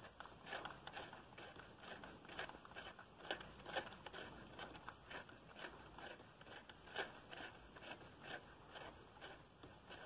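Faint, irregular small clicks and scrapes of hands at work in an engine bay, turning out a loosened thermostat-housing bolt by hand.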